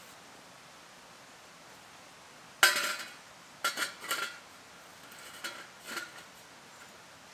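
Stainless steel wood-burning camp stove being handled and assembled: one loud metal clank with a short ring about two and a half seconds in, then several lighter clinks and scrapes as the top ring is fitted into the stove body.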